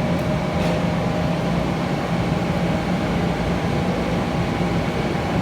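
Steady rumble and hum of a subway station, with a faint constant tone over it and no change in level.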